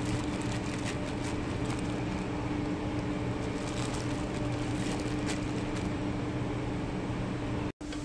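A steady mechanical hum with a constant low tone, and a few faint light clicks; the sound cuts out for a moment near the end.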